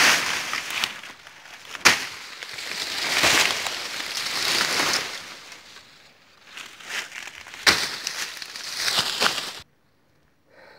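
Dry sugarcane leaves and stalks crackling and rustling as cane is cut by hand with a bladed tool, with two sharp chopping knocks. The sound cuts off suddenly near the end.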